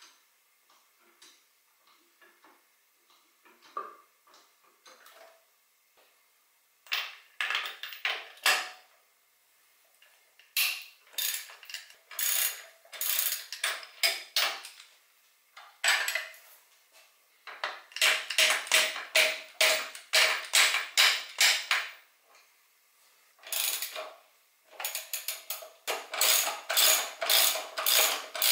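Hand socket ratchet clicking in quick runs of strokes, several a second and broken by short pauses, as motorcycle engine-mount bolts are worked loose. The first few seconds hold only faint handling noises.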